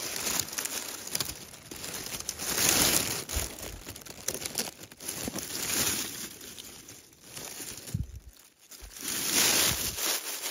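Dry fallen leaves crinkling and rustling as a hand pushes the leaf litter around beside a log. The sound comes and goes in several spells, loudest about three seconds in and again near the end.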